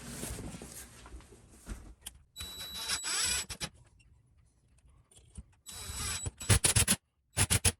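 Handling noises: separate short bursts of rustling and scraping, then a quick run of sharp clicks near the end.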